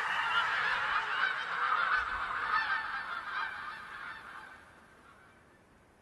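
A huge flock of geese calling all at once, a dense chorus of overlapping honks. It fades away over a couple of seconds, about four to five seconds in, leaving near silence.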